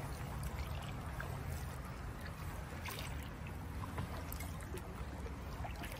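Kayak paddling: paddle blades dipping and water splashing and trickling lightly, over a steady low rumble.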